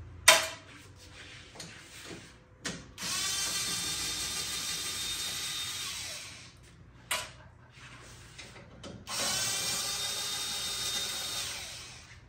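Handheld power driver spinning out the 10 mm grille bolts in two runs of about three seconds each, its motor whine rising as it spins up and winding down as it stops. A sharp click just after the start is the loudest sound, with a few lighter clicks between the runs.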